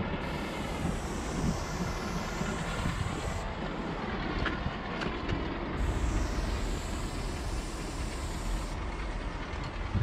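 Aerosol spray paint can hissing in two long sprays as yellow fill is laid on a wall, with a short pause and a few light clicks between them, over a steady low rumble.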